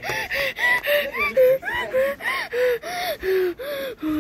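Electronic voice of an Elmo plush toy being squeezed: a rapid run of short, high-pitched laughing and gasping sounds, about three a second.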